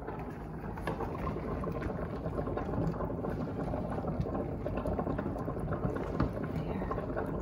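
Stir-fry sizzling and bubbling in a hot wok as two wooden spatulas toss and scrape through the cabbage, pork and noodles, a steady crackle with small clicks. The cornstarch slurry just added to the sauce is heating up.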